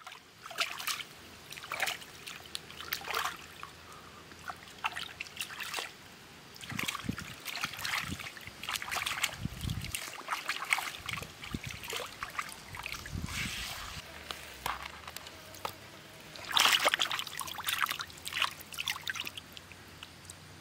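Raw chicken thighs being washed by hand in a shallow stream: irregular splashing and sloshing over the steady trickle of running water, loudest about three-quarters of the way through.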